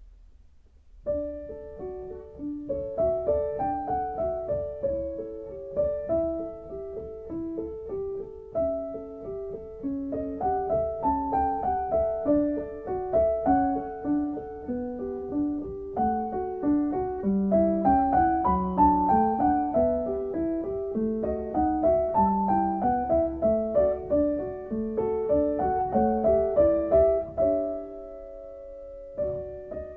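Background solo piano music: a gentle melody over chords, starting about a second in and settling on a held chord near the end.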